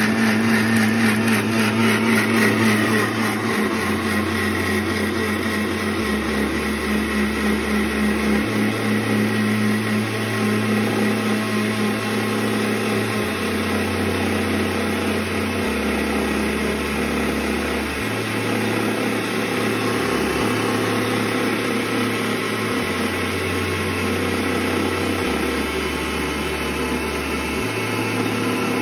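Havells Supermix NV 500 W mixer grinder's motor running steadily at speed, its blades grinding peeled garlic into paste in the steel jar.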